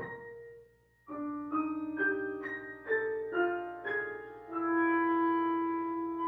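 Wind quintet playing classical music: a held note fades to a brief pause about a second in, then the ensemble comes in with a quick series of stepping notes and settles into a sustained chord about four and a half seconds in.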